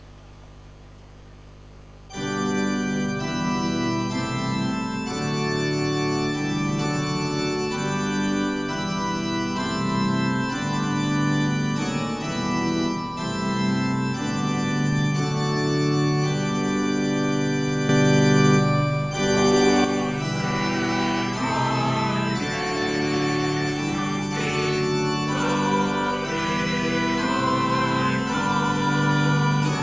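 Organ music: sustained organ chords that come in loudly about two seconds in, after a faint hum, and move slowly from chord to chord.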